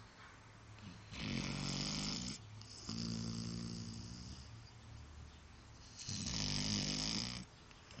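Sleeping dog snoring: three snores, a rough rattling one about a second in, a smoother humming one just after, and another rough one about six seconds in.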